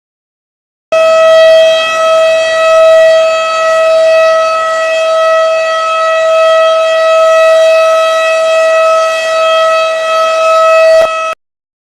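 Synthesized single-tone outdoor warning siren, made to imitate a 12-port rotating siren. It starts about a second in, holds one steady pitch rich in overtones with its loudness slowly swelling and fading, and cuts off suddenly near the end.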